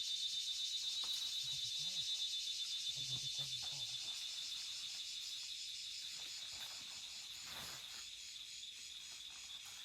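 Forest insects trilling, a steady high-pitched buzzing that slowly fades.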